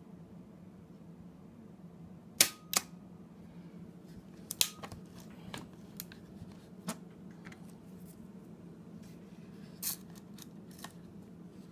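Graflex press camera shutter firing from its electric release: sharp mechanical clicks, the loudest a pair about a third of a second apart near the start. More clicks follow at uneven intervals, a faint steady hum underneath.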